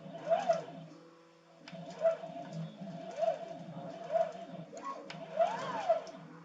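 CNC machine's stepper motors whining as the axes move, the pitch rising and falling again and again over a steady hum, with a thin scratching noise and a few sharp clicks, while the machine drag engraves a ring.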